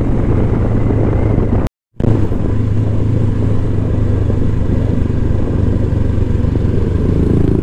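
Motorcycle engine running steadily while riding, a constant low hum. The sound cuts out completely for a moment just under two seconds in, then resumes unchanged.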